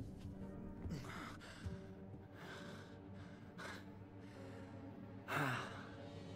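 A man breathing hard in short, ragged gasps, four breaths in all, the last about five seconds in the loudest, a voiced sigh falling in pitch. Low, sustained film music holds underneath.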